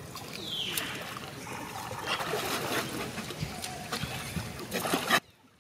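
Water splashing and sloshing as macaques swim in a pool, with a brief high, falling squeal from a monkey about half a second in. The sound cuts off suddenly near the end.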